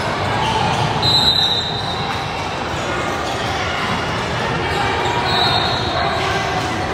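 Echoing sports hall during a match: ball bounces and hits over steady chatter from players and spectators. Two short high-pitched squeaks come about a second in and again near the end.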